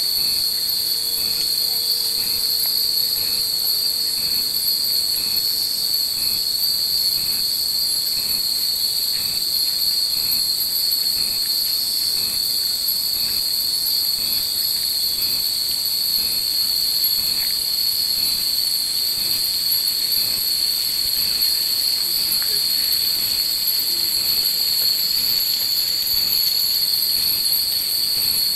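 Dense chorus of cicadas in the summer trees, a loud steady high-pitched drone, with a faint regular pulse about once a second through the first half.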